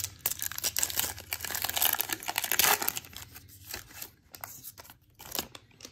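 Baseball card pack wrapper crinkling and rustling as the pack is opened and the cards are slid out and handled. The crinkling is dense for the first two and a half seconds or so, then thins to scattered rustles and dies away near the end.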